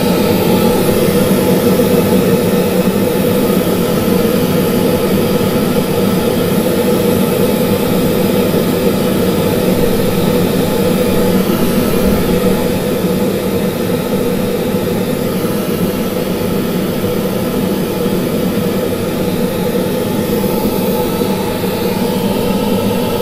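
Pink noise test signal played loud and steady through Promax PL210AR loudspeakers to measure their frequency response, its energy heaviest around 200 and 500 Hz.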